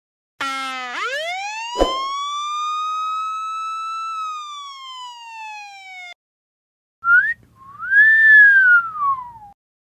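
Siren-like sound-effect pitch glides. A rich, buzzy tone sweeps up for about three seconds, with a click partway, then slowly sinks and cuts off suddenly. After a short gap comes a quick rising chirp, then a whistle-like tone that rises and falls over about two seconds above a low buzz.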